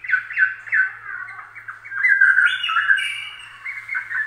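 Rapid, high chirping calls: a dense run of short falling chirps, several a second, with a louder stretch about two seconds in, over a faint low hum.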